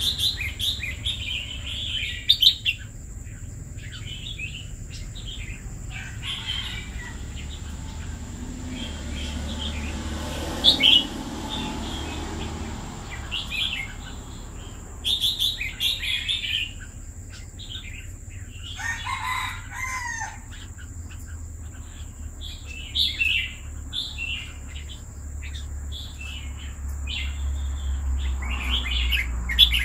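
Caged red-whiskered bulbul singing: short, bright chirping phrases in repeated bursts with pauses between them.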